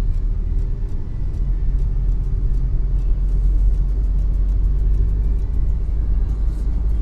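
Car driving through city traffic, heard from inside the cabin: a steady, loud low rumble of road and engine noise with faint ticking above it.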